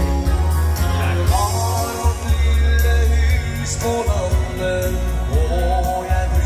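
Dansband music played live through PA speakers: a singer over keyboard and a strong bass line.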